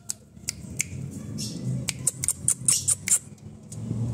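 Brown-plumaged ultramarine grosbeak (azulão) in its cage giving a quick series of short, sharp chip notes, about a dozen, coming thicker in the second half.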